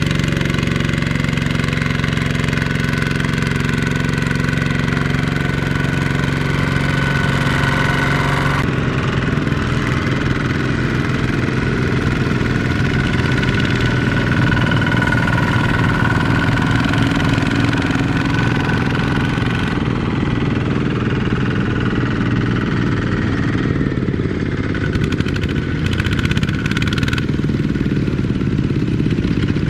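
Single-cylinder diesel engines of two-wheel walking tractors (power tillers) running steadily while hauling loaded trailers, several machines at once. The engine tone shifts abruptly twice, about nine and twenty seconds in.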